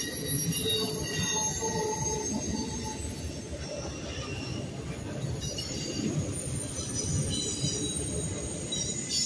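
Loaded intermodal freight cars carrying double-stack containers and trailers rolling past with a steady rumble. Thin high wheel squeals come and go over it.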